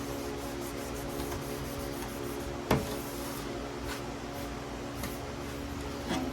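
Handling of an aluminium tracksaw track during cleaning of adhesive residue off its splinter-guard strip: one sharp knock about three seconds in and a few lighter taps, over a steady hum.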